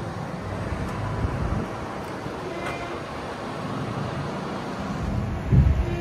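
Heavy lorry engine running steadily with a low rumble. Wind starts buffeting the microphone about five seconds in.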